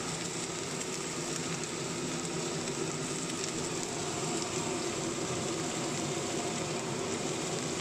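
Chopped mixed vegetables frying in oil in a pot: a steady, even sizzle.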